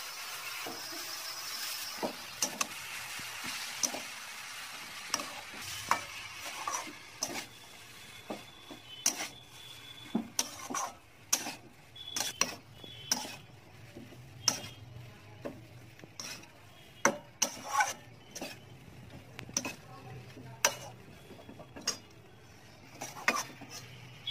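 A flat metal spatula stirring boiled banana blossom through a frying mixture in a metal wok: irregular scrapes and clicks of the spatula against the pan over a soft sizzle. The sizzle is strongest for the first two seconds.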